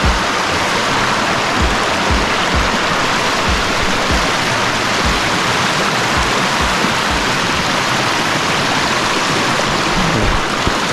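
Waterfall rushing, a steady loud roar of falling water, with scattered dull low thumps.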